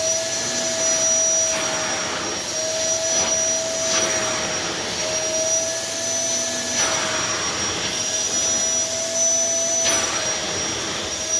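Hitachi CV-950F vacuum cleaner running with a steady high motor whine, its rush of air swelling and easing every second or two.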